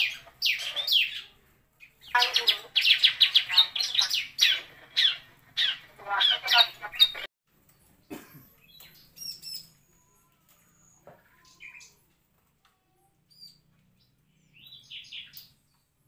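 Bar-winged prinia (ciblek) singing: several loud bursts of rapid, sharp, high repeated notes that cut off suddenly about seven seconds in, followed by only a few faint chirps.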